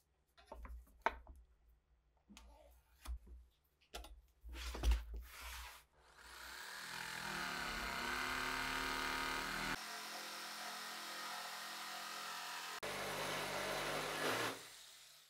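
A few scattered knocks and taps from handling wooden pieces, then an electric jigsaw running and cutting through a wooden board for most of the rest, stopping shortly before the end.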